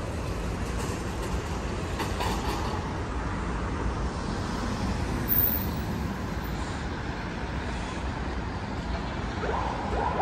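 Steady road and engine rumble of a moving vehicle, heard from inside it.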